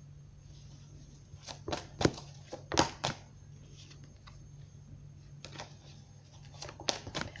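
A tarot deck being shuffled by hand: clusters of crisp card slaps and taps, the loudest about two to three seconds in and another group near the end, over a steady low hum.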